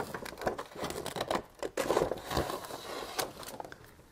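Dry-film photoresist plastic sheet crinkling and rustling as it is cut free with scissors, with many irregular sharp clicks.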